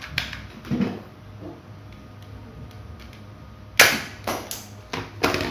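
Plastic toy dart pistol being handled with a few light clicks, then a sharp loud snap a little before the end as it fires a suction-cup dart, followed by a few more plastic clicks.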